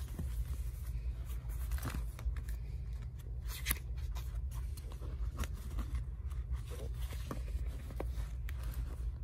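Hands handling planner covers: a clear plastic jelly cover and a planner book rustling, scraping and clicking as they are slid into a leather cover, with one sharper click about three and a half seconds in. A low steady hum runs underneath.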